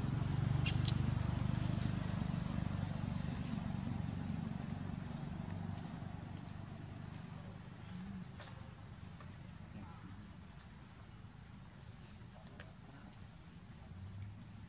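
Outdoor ambience: a low engine hum that fades away over the first several seconds, a steady high-pitched insect whine, and a few faint clicks.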